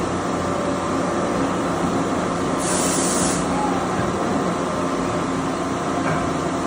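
Doosan MX-2100ST multi-tasking CNC lathe running, a steady machine hum with several held tones, and a short hiss about three seconds in.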